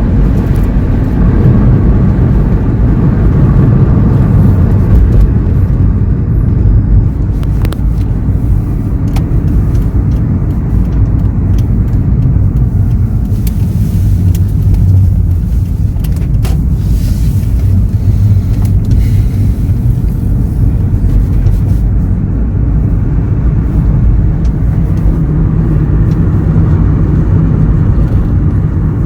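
Car on the move: a steady, loud engine and road rumble, with a few faint clicks.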